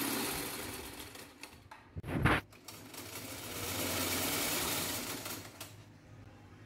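Singer sewing machine driven by its electric belt motor, running in spells under the foot pedal: it runs, slows and stops, runs again for a couple of seconds, then dies away near the end. A short loud bump about two seconds in.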